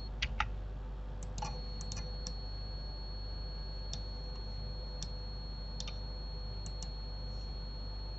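Scattered light clicks of a computer mouse and keyboard, about a dozen in all, over a steady low hum and a faint high-pitched whine.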